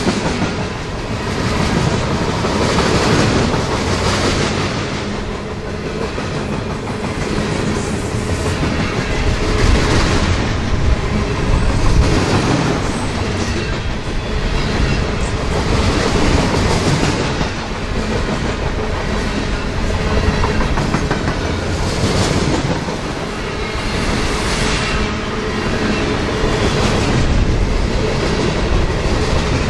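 Train rolling past, its wheels clicking and clattering over the rails in a steady, loud run.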